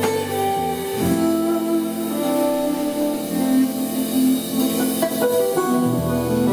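Steel-string acoustic guitar played live, picked notes ringing on and changing every second or so in an instrumental passage.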